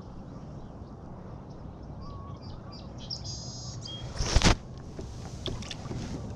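Water and handling noise around a kayak while a hooked bass is played alongside, with one loud sharp thump about four and a half seconds in.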